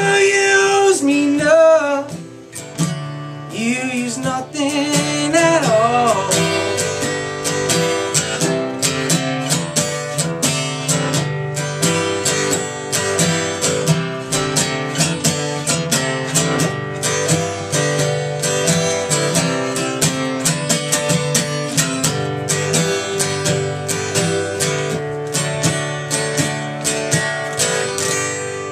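Acoustic guitar strummed in a steady rhythm, the instrumental outro of a live folk song, dying away at the very end.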